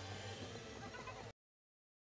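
Faint audio from a touchscreen driving game playing on a car's Android head unit, a steady low hum with light music and small ticks. It cuts off suddenly about a second in, leaving dead silence.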